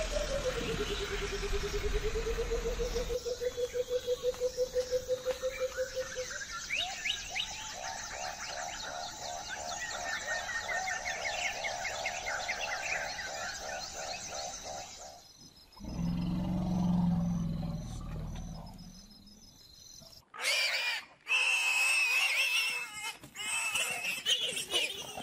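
Wild animal calls in separate stretches: a spurfowl calling in a long run of rapid, evenly repeated harsh notes, then a low growl, then higher calls near the end.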